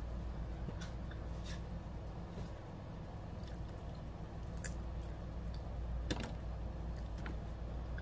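A person chewing fried seafood, with a few short, sharp clicks over a steady low hum.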